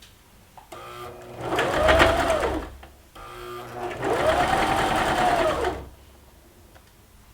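Baby Lock Zeal electric sewing machine stitching in short runs, the motor speeding up and slowing down with each press of the foot pedal; it stops about six seconds in.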